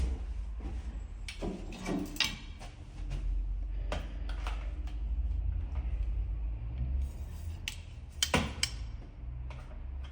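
Low rumble of a handheld recording phone being carried and handled, with a few scattered clicks and knocks, the loudest a close pair about eight seconds in.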